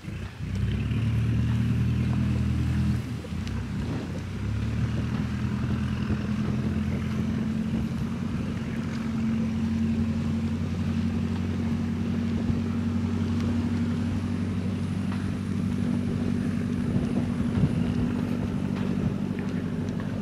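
An engine running steadily with a low, even hum. It comes in abruptly just after the start and changes slightly about three seconds in.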